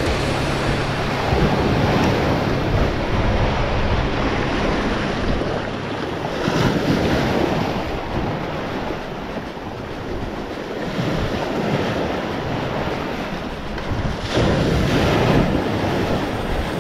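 Sea waves breaking and washing over shoreline rocks, surging every few seconds, with wind buffeting the microphone.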